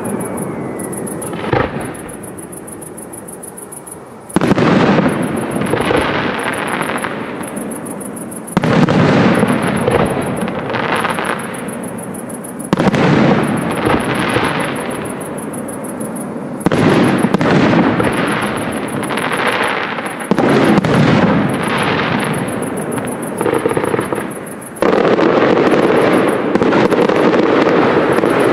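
Fireworks display: aerial shells going off with a sudden loud bang about every four seconds, each followed by several seconds of dense crackling and rumbling noise.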